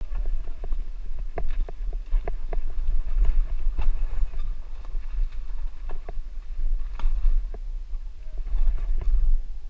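Bicycle-mounted camera rattling and knocking as the bike jolts over a rough dirt path: irregular sharp knocks, several a second, over a steady low rumble.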